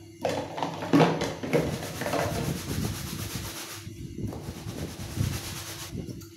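Soapy sponge scrubbing a white plastic dish over a stainless steel sink: a continuous scratchy rubbing, with a sharp knock about a second in.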